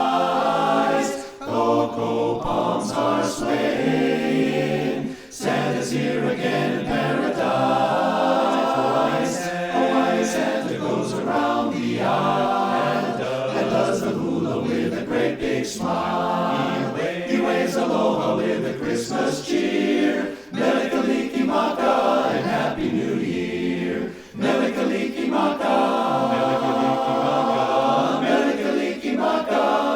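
Barbershop chorus singing a cappella in close four-part harmony, with short breaths between phrases.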